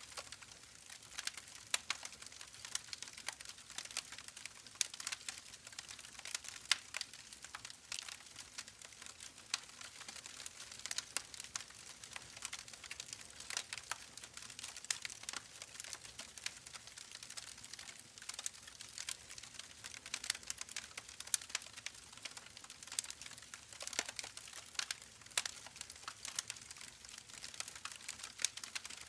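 Campfire crackling: irregular sharp pops and snaps of burning wood over a soft steady hiss.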